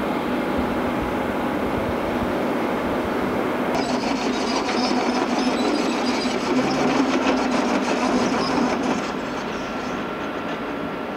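Heavy diesel machinery running steadily. A dense metallic rattle and clatter joins in about four seconds in, grows louder, then eases off a couple of seconds before the end.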